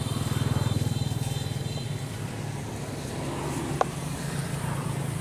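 A motor engine running steadily: a low, even, pulsing rumble that is loudest about half a second in and eases a little after.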